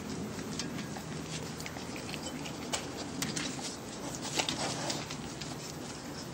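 A South African Boerboel noses and paws a food-filled rubber puzzle toy on concrete: scattered light taps, knocks and scrapes of the toy against the ground and step.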